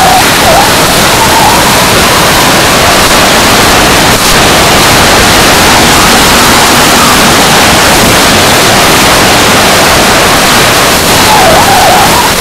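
Loud, steady rush of airflow and turbine noise heard by a camera riding on a radio-controlled model jet in flight, with a faint wavering whine near the start and again near the end.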